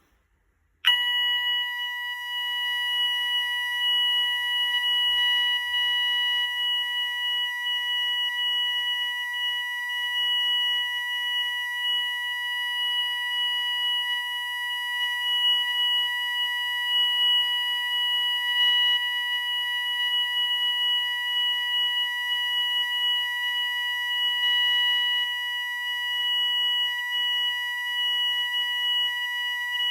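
Roshni RoLP waterproof fire alarm sounder switching on about a second in and sounding its continuous tone: one steady high tone that does not rise, fall or pulse.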